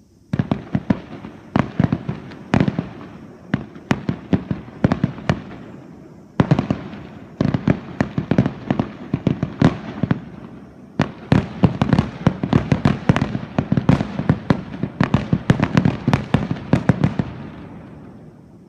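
Aerial fireworks shells bursting in a rapid barrage, many sharp bangs a second over a continuous rumble. There are two brief lulls, and the barrage dies away near the end.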